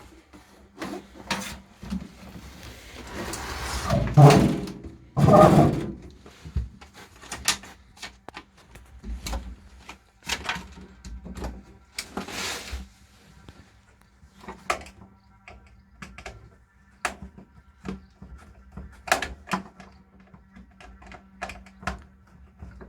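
Knocks, clicks and clatter of hands working on a washing machine being readied for a drain-pump replacement, with a louder scraping stretch about three to six seconds in.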